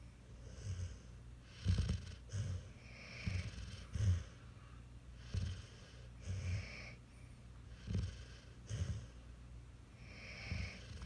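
A puppy snoring in its sleep: regular breaths about every two seconds, each a low rasping snore with a hissy breath sound.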